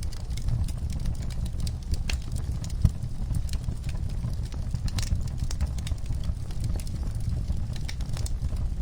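Wood fire crackling in a fireplace: frequent irregular pops and snaps over a low steady rumble of the flames, with one louder pop about three seconds in.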